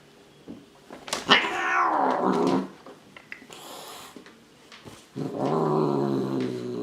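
An angry cat yowling in two long drawn-out calls: the first falls in pitch, the second is held steady. A sharp click comes just before the first call.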